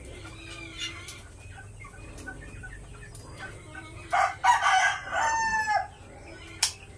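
A rooster crows once, about four seconds in, for nearly two seconds, ending on a held note, over scattered clucking from chickens. A sharp click sounds near the end.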